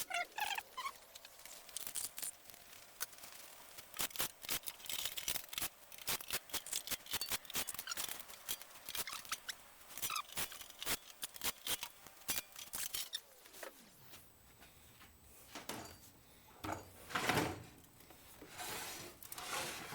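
Screws being taken out of a MIG welder's case: a rapid, irregular run of small metallic clicks and scrapes, followed near the end by a few louder, duller handling knocks.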